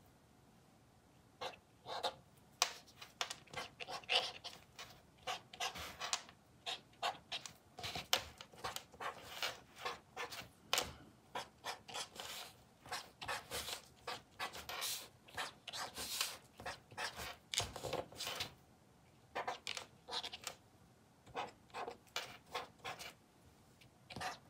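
Tip of a Karin Pigment Decobrush acrylic brush pen scratching on black cardboard in short strokes, about one or two a second with brief pauses, as each stroke is set down and pulled out to paint a small leaf.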